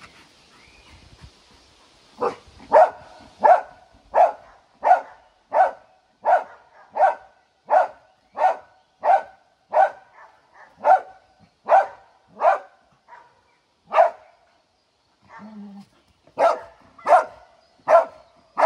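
A Belgian Malinois barking steadily, about one and a half barks a second, with a short break near the end before three more barks. This is a search dog's bark alert, held at one spot in a rubble pile, where it has found the hidden person.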